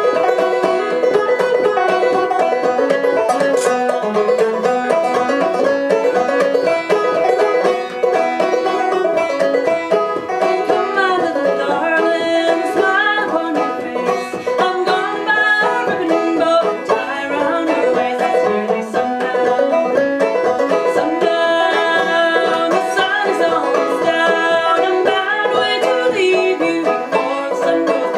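A live band playing a song, with quick runs of picked string notes throughout and little or no singing.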